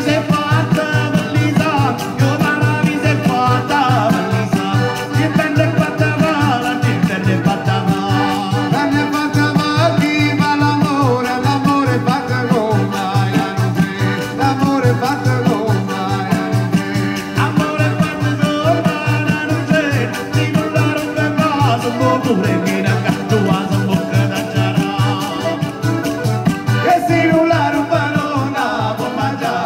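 Live southern Italian folk music: accordion and acoustic guitar over a steady fast beat on a frame drum, with a voice singing the melody.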